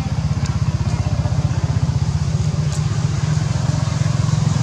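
A small engine running steadily nearby with a fast, even low throb, like a motorbike or similar motor idling.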